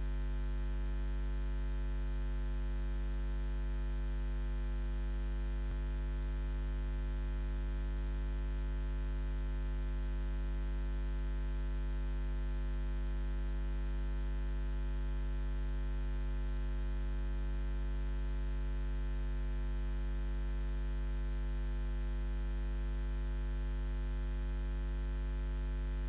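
Steady electrical mains hum: a low buzz with a stack of higher overtones and nothing else.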